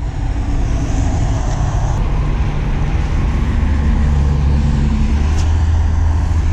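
Road traffic: a motor vehicle's engine giving a steady low rumble that grows stronger about three seconds in.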